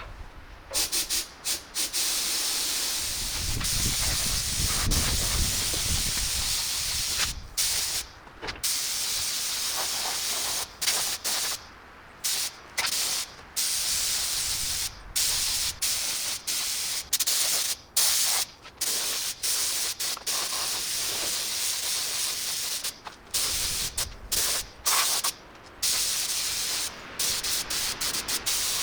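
Paint being sprayed onto a truck frame: a hiss that stops and starts many times as the spray is triggered in short runs.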